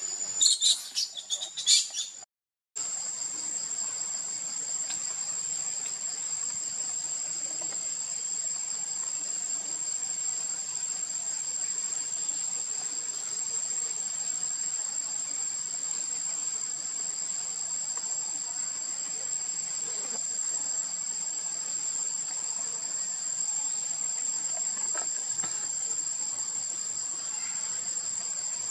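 Steady high-pitched insect chorus, an unbroken trilling buzz from crickets or cicadas in the trees. A few loud sharp sounds break in during the first two seconds, and the audio drops out briefly before the chorus carries on.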